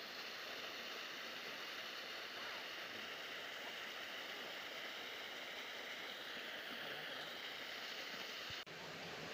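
Small waterfall pouring down a rock face into a pool: a steady rush of falling, splashing water. The sound cuts out for an instant near the end.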